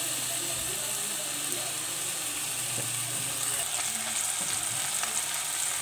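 Button mushrooms with onions and oil sizzling in a metal pot on the stove, a steady frying hiss, their water cooked off and coconut cream just added on top.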